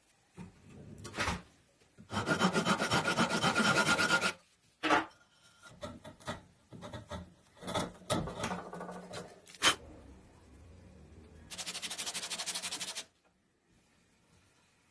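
A tool rasping against wood in two spells, a long one about two seconds in and a shorter one near the end, with knocks and scraping between them.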